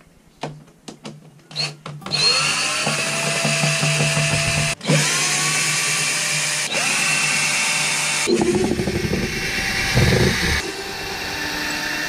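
Cordless drill-driver running in runs, backing out the screws that hold the hinge frame of a boat's top-loading refrigerator lid. A few clicks come first, then the motor runs steadily for about six seconds with a brief stop in the middle, and it turns rougher and rattling for the last few seconds.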